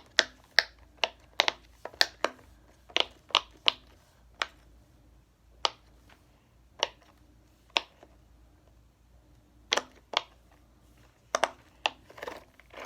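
A handheld toy puppet fidget being worked, giving a run of sharp clicks: quick and irregular for the first few seconds, then spaced out, with a couple of close pairs near the end.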